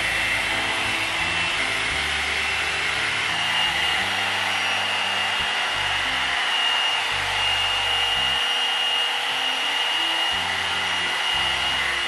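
Hot air blow brush (hair dryer brush) running steadily, an even rush of air with a thin high whine from its motor, as it is worked through dry hair.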